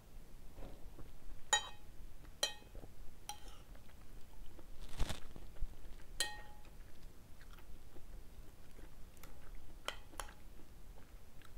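A person eating noodle soup: chewing, with a metal spoon and fork clinking against a ceramic bowl about half a dozen times, each clink ringing briefly.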